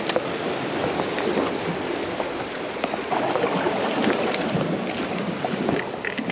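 Steady rush of surf and seawater washing around shoreline rocks, with scattered light knocks and scrapes from a person clambering over the rock.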